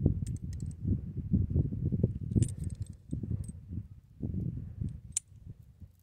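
Close handling noise from hands threading a tire plug string through the eye of a metal plug insertion tool: irregular low rustling and bumping, with a few light metallic clicks about half a second in, around two and a half seconds in and again near the end.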